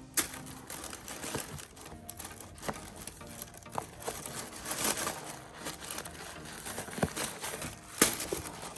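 Packaging crinkling and rustling as it is handled, with scattered sharp taps and one loud knock about eight seconds in.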